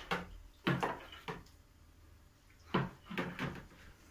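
A ladle knocking against a plastic bowl as pickling brine is stirred: three light knocks in the first second and a half, then a few more about three seconds in.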